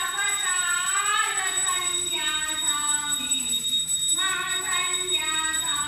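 Dog howling along with temple prayers: three long, wavering wails, the second sliding down in pitch.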